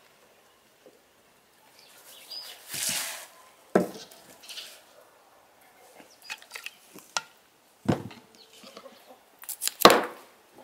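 Handling sounds of preparing a whole raw chicken: a brief swish, a few knocks of the bowl and bird being handled, then a kitchen knife chopping through the chicken onto a wooden cutting board, the loudest knocks near the end.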